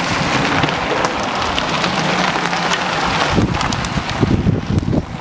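Bicycle tyres crunching and hissing over loose gravel as riders pass close by, a dense grainy rush with small stone clicks. From about three and a half seconds in, gusts of wind buffet the microphone.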